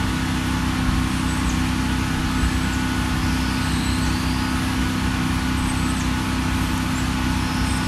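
Wood-Mizer portable band sawmill running at a steady speed, its engine holding an even hum as the band blade cuts along a log to take off the top slab.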